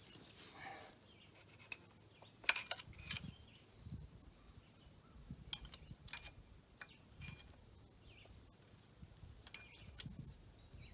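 Scattered light metallic clicks and clinks at irregular intervals, from hand tools and loose parts being handled while an old tractor engine is dismantled; the sharpest click comes about two and a half seconds in.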